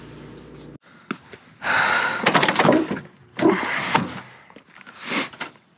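A steady engine-like hum that cuts off abruptly about a second in, followed by several loud bursts of clattering, rustling and knocking as objects are handled.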